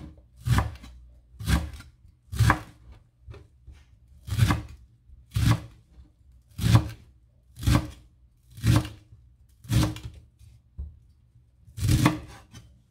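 Chef's knife chopping fresh leafy herbs on a wooden cutting board: about ten sharp knocks of the blade on the board, roughly one a second, with a longer pause before the last one.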